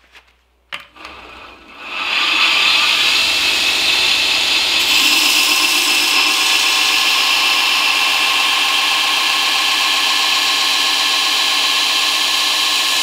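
Belt grinder grinding the bevel on a 1084 carbon-steel knife blade, held against a worn abrasive belt before heat treatment. After a click about a second in and a quieter running sound, a loud, steady grinding starts about two seconds in and cuts off suddenly at the end.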